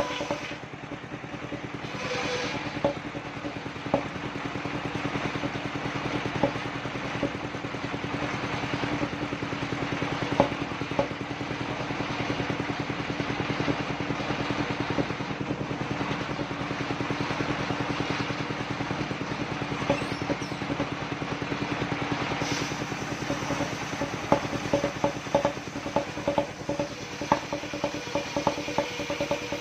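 Engine-driven portable circular sawmill running steadily at one pitch, with a rapid mechanical clicking and rattling in the last few seconds.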